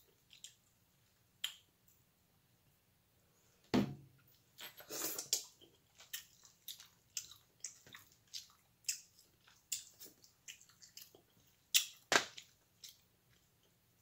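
Hard king crab leg shell cracking and snapping as it is broken and picked apart by hand, a string of small sharp clicks and crunches with two louder cracks, about four seconds in and near the end.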